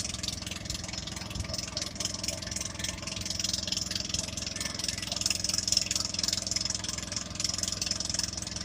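A motor engine running steadily at an even speed, with a steady hiss above it.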